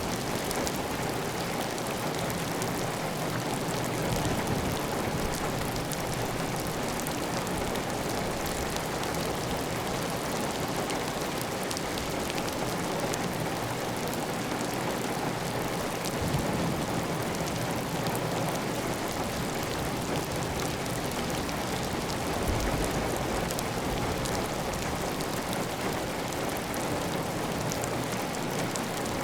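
Steady heavy rain on a tile roof, with water running off the roof edge: a dense, even hiss dotted with the ticks of individual drops.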